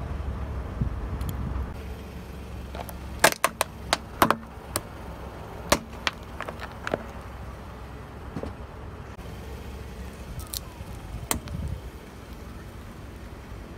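Car tyre rolling slowly onto plastic objects on asphalt, crushing them: a quick run of sharp cracks and snaps a few seconds in, then a few scattered cracks, over the car's low steady rumble.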